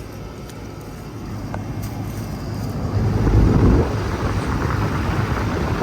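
Outdoor air-conditioner condenser unit running, its powerful fan blowing with a steady hum. The rush of air on the microphone grows louder about three seconds in, as it comes over the fan grille.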